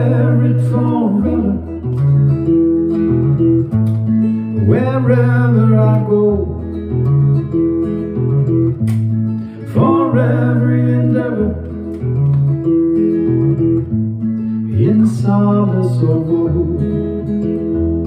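Steel-string acoustic guitar with a capo, played in a steady chord pattern, with a man's voice singing a short phrase about every five seconds.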